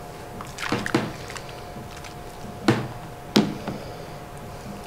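Metal ladle knocking against the jug of a blender while scooping out marinade: a few light clinks about a second in, then two sharp knocks near the end.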